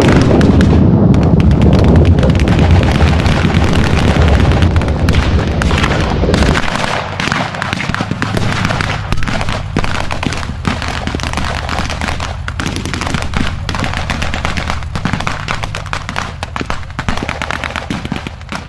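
A pyrotechnic explosion goes off at the start, its deep rumble carrying on for about six seconds, under and followed by rapid blank gunfire from rifles and machine guns in a mock battle.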